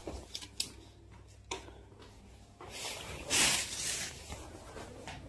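Light handling noises in a small room: a few soft clicks, then a brief rustle about three seconds in.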